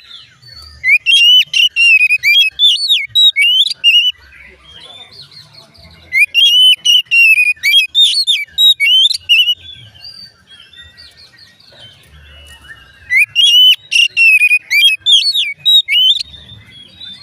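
Oriental magpie-robin (kacer) singing: three bursts of rapid, varied whistled phrases with sharp high notes, each a few seconds long, with quiet gaps between.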